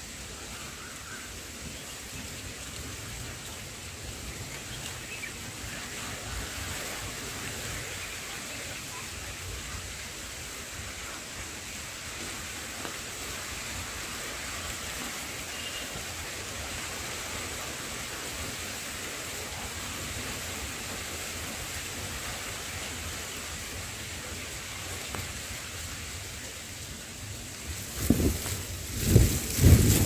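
Steady outdoor background hiss, then, about two seconds before the end, several loud low rumbling buffets like wind gusting on the microphone.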